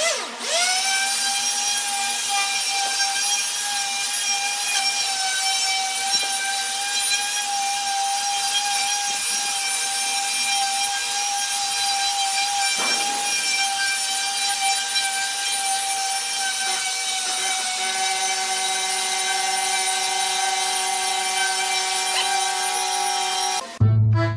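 Electric finishing sander running on a slatted pallet-wood tabletop: a steady high motor whine over a rasping hiss, rising in pitch as it comes up to speed at the start. It stops suddenly near the end, where accordion music comes in.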